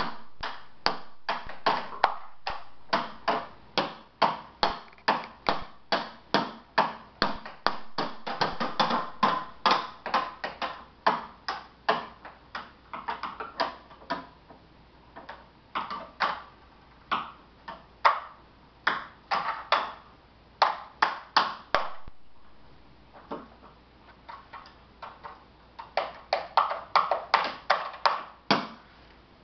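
A small child beating a wooden box with drumsticks, striking in uneven runs of about two to three hits a second, with a sparser patch about two-thirds of the way through.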